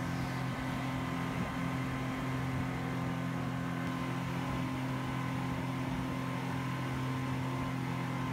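Motorboat engine running steadily at cruising speed: a constant low drone with a hiss of rushing water.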